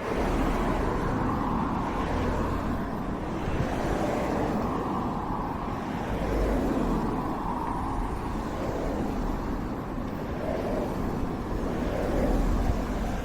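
Loud, steady rumbling of a heavy vehicle passing close by, with a deep low hum underneath that swells slowly.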